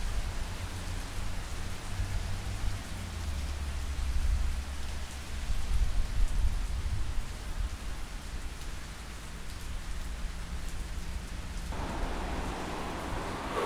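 Steady rain hiss over a low rumble. About twelve seconds in the sound changes suddenly and the rain hiss becomes brighter and louder.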